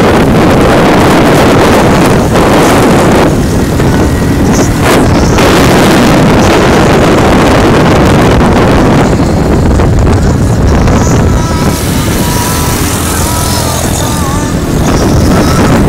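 Wind buffeting the microphone on a moving motorcycle, a loud steady rush over the engine and road noise. From about eleven seconds in, a faint wavering tone comes and goes on top.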